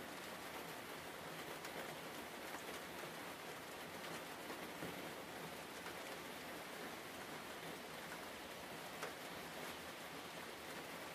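Steady hiss like rain falling on a surface, with scattered faint ticks.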